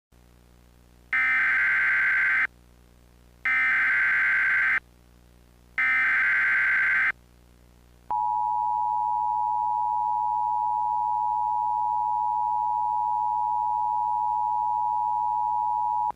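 Emergency Alert System SAME header: three bursts of screeching digital data tones, about a second and a half each, starting about a second in. About eight seconds in, the EAS two-tone attention signal begins and holds steadily for about eight seconds, announcing that an alert message follows.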